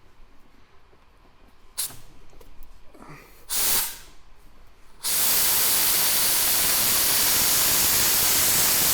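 Compressed-air blow gun: two short blasts, then a steady loud hiss for about four seconds that stops suddenly. The air is being forced down a blocked passage on the car, and none comes out the far end.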